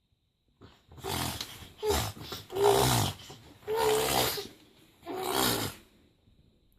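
An 8-month-old baby making a strange, funny noise over and over: about five rough, breathy vocal bursts, each under a second, with short pauses between.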